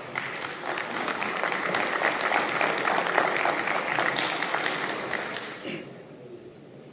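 Members of parliament applauding in the assembly chamber, a dense patter of many hands that fades away about six seconds in.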